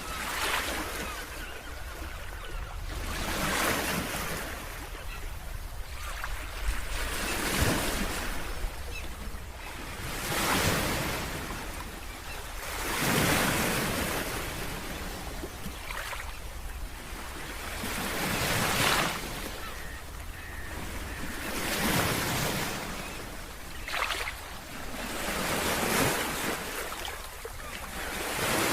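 Ocean waves breaking on a beach, each wash swelling and falling away about every two to three seconds. A steady low wind rumble sits on the microphone underneath.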